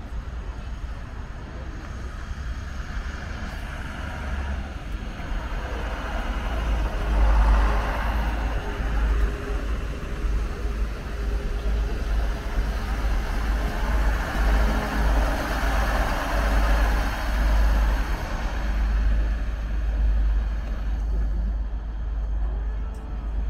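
A train running past, a steady rushing rumble that swells twice, with wind buffeting the microphone.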